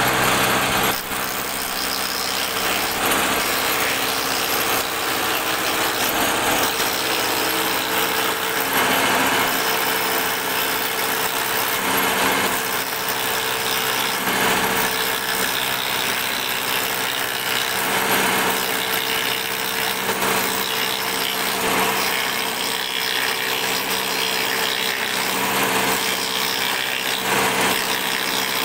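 Table-mounted woodworking cutter running steadily under load, its spinning bit cutting a profile along a wooden board as the board is fed through past spring-loaded hold-downs.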